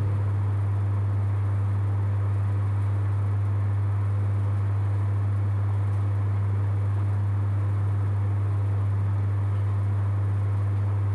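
Steady low electrical hum from an amplified microphone and sound system, with a faint hiss over it.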